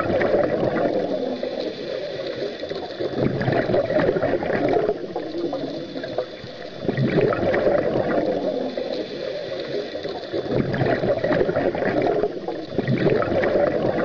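Underwater water ambience: low, muffled bubbling and gurgling that swells and eases every few seconds.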